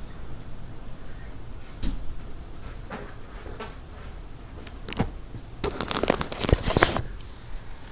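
Sharp crackles and clicks: a few single snaps, then a dense burst of crackling lasting about a second and a half near the end, crackling attributed to lightning.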